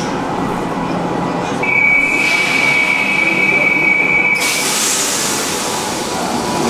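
Naples Metro Line 1 train running in the tunnel. About a second and a half in, a steady high-pitched wheel squeal starts and holds for about three seconds; after it a louder high hiss carries on with the running noise.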